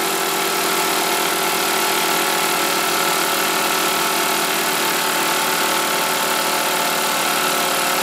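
A machine running steadily: an even hum with a constant hiss, holding one speed throughout.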